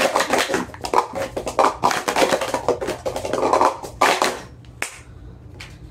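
Plastic sport-stacking cups being rapidly stacked up and down on a mat: a fast clatter of clicks and taps that stops about four and a half seconds in, followed by a couple of single clicks.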